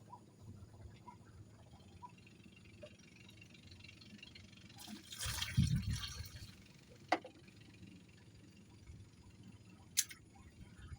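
A splash or slosh of water lasting about a second and a half, about halfway through, over a quiet background; two short sharp clicks follow.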